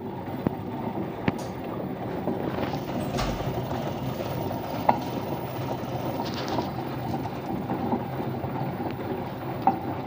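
LG front-loading washing machine on its spin cycle, the drum running with a steady rumbling hum and a few sharp ticks. The hum is the sign of a worn drum bearing, which the owner blames after water leaked into it.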